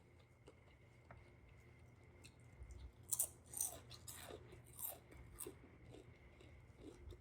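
A person chewing crunchy snack food close to the microphone: faint chewing at first, then a run of crisp crunches from about three seconds in.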